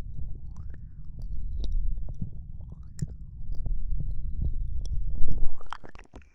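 Close-miked ASMR mouth sounds: many wet tongue and lip clicks over soft, rumbling breath on the microphone. It cuts off abruptly at the very end.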